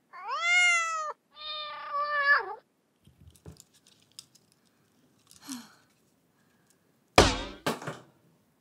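A cat meows twice: the first call rises and falls, the second is lower and longer and drops at the end. A few faint clicks follow, then two sharp knocks about seven seconds in, the first the loudest sound here.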